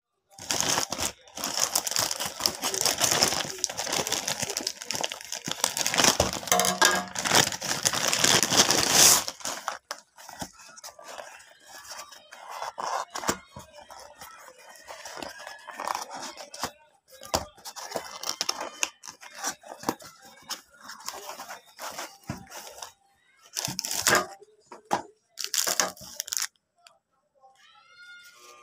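Plastic courier mailer bag being torn open and crinkled, loudest for the first nine seconds or so, then quieter rustling and crackling of a cardboard box and paper wrapping being handled and opened.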